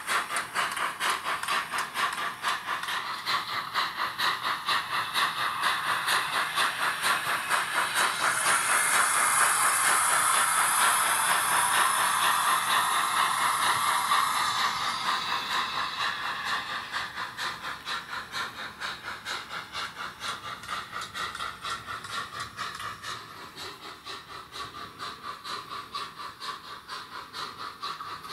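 ESU LokSound V5 micro sound decoder in a Roco H0 model of a DR class 93 steam tank locomotive, playing an even run of quick steam exhaust chuffs with hiss through its small speaker as the train runs. A stretch of high steam hiss comes in about a third of the way through, and the chuffing then fades as the locomotive moves away.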